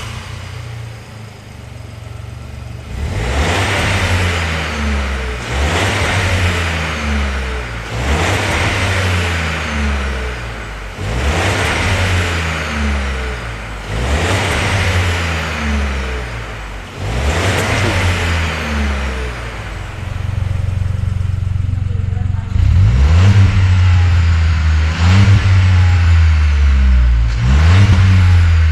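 VW Up GTI's 1.0 TSI three-cylinder turbo engine through a Scorpion non-resonated cat-back exhaust, idling and then revved about six times, each rev rising and falling back. Near the end come several quicker, shorter blips of the throttle.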